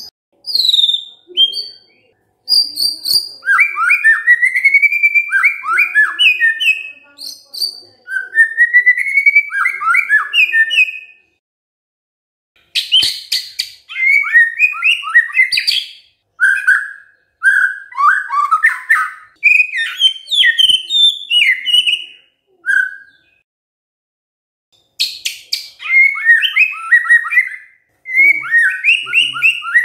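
White-rumped shama singing loud, fast runs of varied whistled phrases, with bursts of quick rattling clicks mixed in and a few short pauses between runs.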